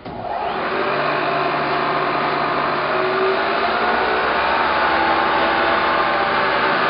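Spindle head of a 1999 Bridgeport Series 1 EZ Trak CNC milling machine starting up: the motor spins up within about a second, then runs steadily with a hum and several steady tones. It sounds healthy.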